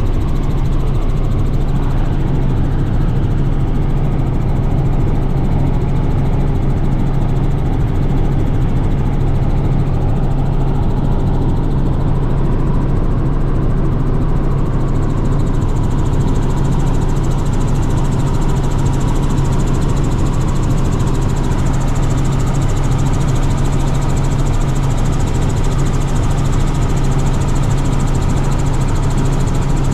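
Inside the cabin of a Robinson R44 helicopter in flight: its piston engine and rotors make a steady, loud drone with a strong low hum. The hiss grows a little brighter about halfway through.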